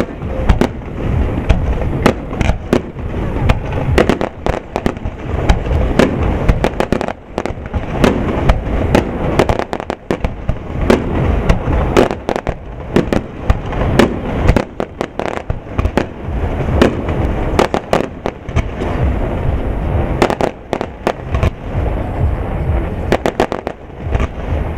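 Aerial firework shells bursting in a dense barrage: many loud, sharp bangs in quick succession, overlapping over a continuous din of reports.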